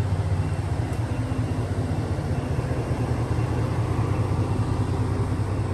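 Ford F150 pickup's engine idling steadily, a low even rumble.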